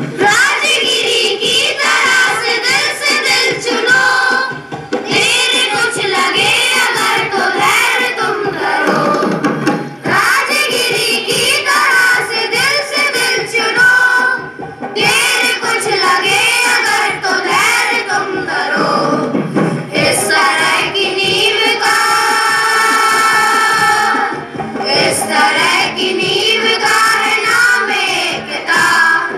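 A children's choir singing a Hindi patriotic Republic Day song in unison through microphones, over keyboard and drum accompaniment.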